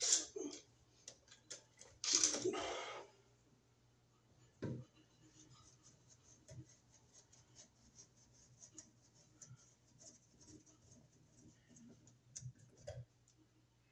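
Two brief loud rustles in the first few seconds and a single knock. Then a long run of small, irregular ticks and scrapes as a screwdriver backs the screws out of an old wall receptacle.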